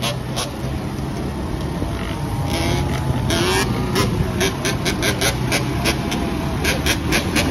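Quad and motorbike engines running at riding speed: a Yamaha Blaster's two-stroke single, big-bored to 260cc, ridden up on its back wheels just ahead, with the engine of the camera rider's own machine close to the microphone. Short bursts of hiss break in again and again over the steady low engine note.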